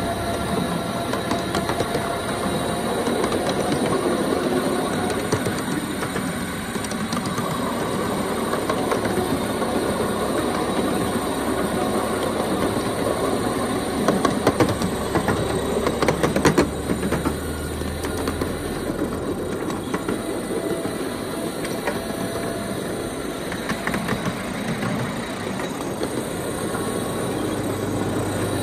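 Ride-on miniature railway train rolling along its track, wheels clicking over the rail joints, with a cluster of sharper clacks about halfway through.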